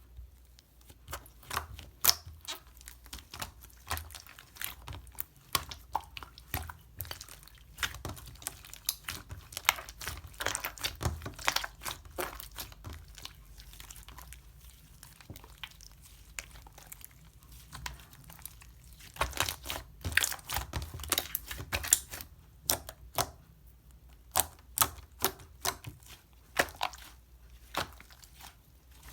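Hands unboxing a slime set: packaging crinkling and tearing, with many sharp irregular taps and clicks as containers and wrappers are handled, busiest about twenty seconds in.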